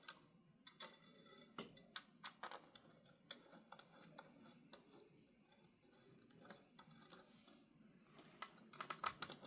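Faint, scattered clicks and taps of ceiling fan parts and small hardware being handled during assembly, with a quicker run of clicks near the end.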